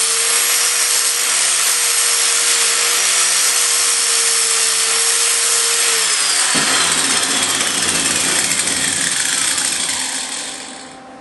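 Handheld grinder grinding the end of a steel rod, with a steady motor hum under the grinding noise. About six and a half seconds in the hum stops and a falling whine is left as the grinder winds down, fading out near the end.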